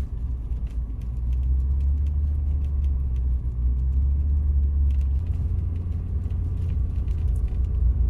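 Car driving, heard from inside the cabin: a steady low rumble of engine and road noise that changes slightly about five seconds in.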